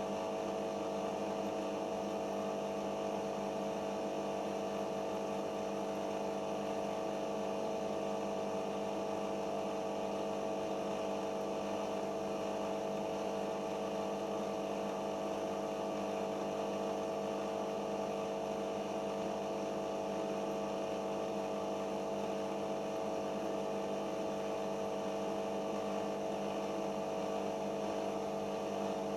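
Siemens iQ washing machine running continuously in its final spin phase: a steady hum made of several fixed tones, with no pauses and no change in speed.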